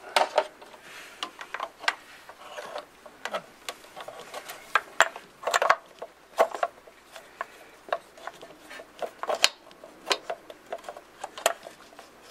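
Irregular clicks, taps and brief scraping of metal and plastic as the aluminium water neck, with its coolant hose and clip, is handled and fitted back into the valley of a Ford 5.0L Coyote engine.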